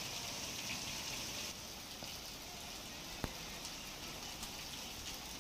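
Heavy rain falling, a steady hiss of rain on the ground and trees. The hiss drops a little about a second and a half in, and a single sharp click comes just past the middle.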